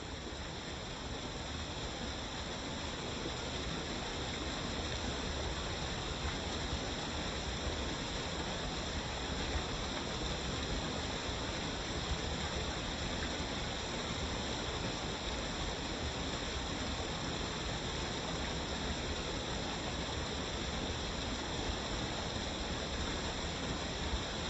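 Waterfall: a steady, dense rush of falling water, fading in over the first few seconds and then constant.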